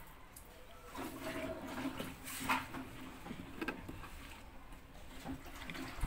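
Water running with a steady rush that starts about a second in, with a few sharp scrapes as caked detergent powder is dug out of a washing machine's dispenser drawer housing.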